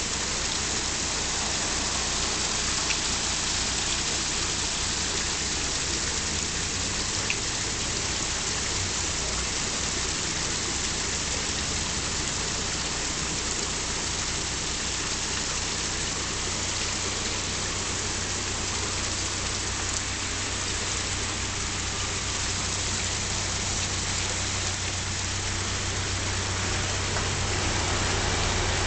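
Water rushing steadily into a canal lock chamber as the lock fills, with a steady low hum underneath that grows stronger about halfway through.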